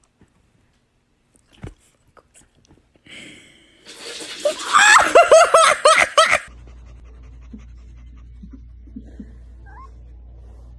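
A person laughing hard, a quick run of short, high-pitched 'ha' bursts with breathy hiss, lasting about two seconds and starting about four seconds in. A steady low hum follows.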